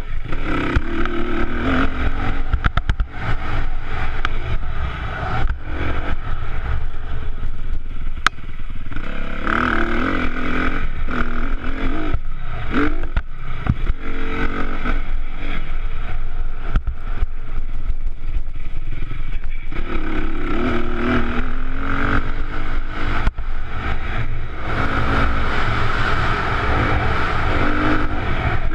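Honda CRF250R four-stroke single-cylinder dirt bike engine heard from the rider's helmet camera, revving up and falling off again and again as it is ridden round a tight track. Wind rumbles on the microphone and the chassis clatters over bumps. Over the last few seconds the engine runs steadier on a gravel road.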